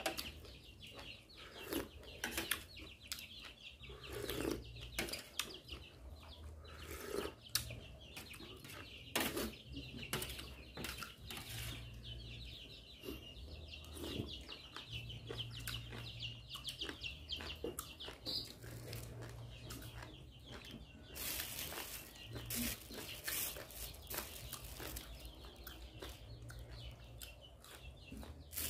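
Eating sounds: a stainless steel spoon clinking and scraping on a metal tray, with chewing of boiled beef tendon, in scattered short clicks and knocks.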